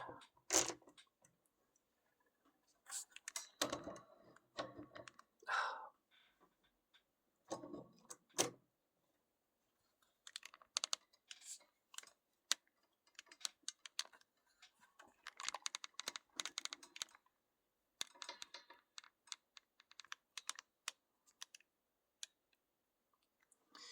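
Small clicks and taps from a six-pin lock being taken apart by hand, coming in irregular clusters with short pauses between them.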